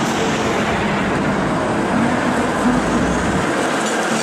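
PCC streetcar rolling past close by: a steady rumble of steel wheels on the rails, with a deeper rumble about three seconds in that then falls away.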